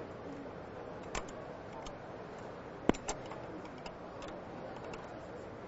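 Light metallic clicks and taps from a roller assembly being handled and slid back into the front of a Zebra ZE500 label print engine: a soft click about a second in, then a sharper click about three seconds in with a second one right after, over a steady low hiss.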